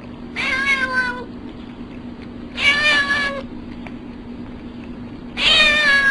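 A domestic cat meowing three times, each call a bit under a second long and dipping in pitch at its end, over a steady low hum.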